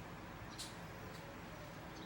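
Quiet room tone with a faint steady hum and a couple of light ticks.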